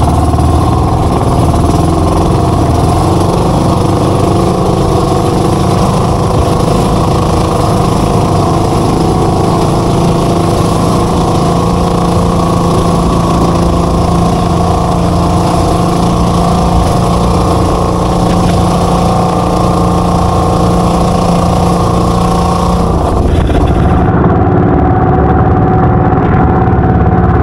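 The twin engines of a small outrigger boat running steadily at speed, with water rushing past the hull. The engine note shifts slightly near the end.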